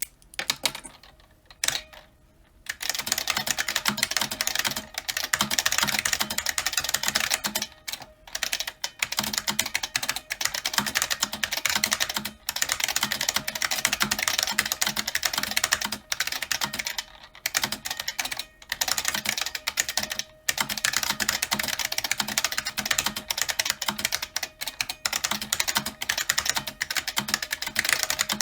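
Fast continuous typing on an IBM Model F XT buckling-spring keyboard: loud, crisp key clicks with a pingy spring ring. A few single keystrokes come first, then a steady stream of typing from about three seconds in, broken only by brief pauses.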